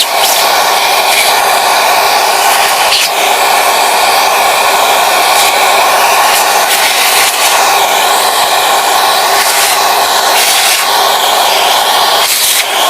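Vacuum cleaner motor running loudly and steadily, a rushing whine with a few brief dips in the airflow.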